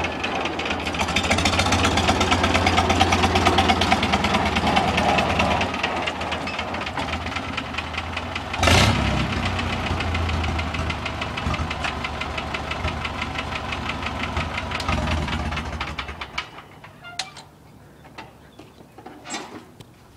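Farmall H's four-cylinder engine running with an even firing beat, loudest for the first few seconds, with one sharp bang near the middle. The engine stops about three-quarters of the way through, leaving a few faint clicks.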